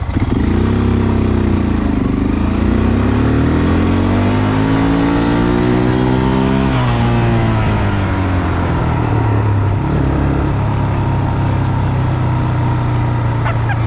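Quad bike (ATV) engine revving under throttle. Its pitch jumps at the start, dips, then climbs steadily for several seconds. About seven seconds in it drops back and runs on steady and lower.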